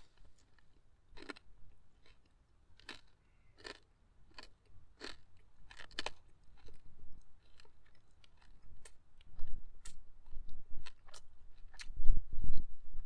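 Close-up chewing of crispy grilled pork belly, sharp crunches coming irregularly about once a second. Heavier low thumps come in near the end.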